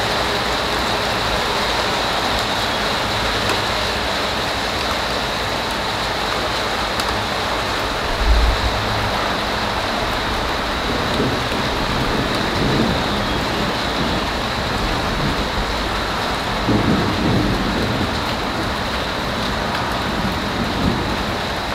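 Steady rain falling, with a few low rumbles of thunder: a short one about eight seconds in and longer ones past the middle.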